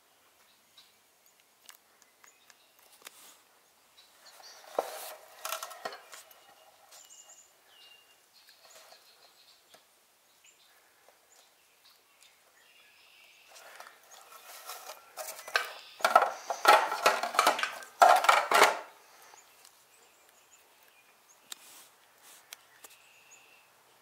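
Hands working at a garage door opener's wiring: scattered clicks and light clatter, with a burst of rustling and knocking about five seconds in and a louder, longer one from about fourteen to nineteen seconds.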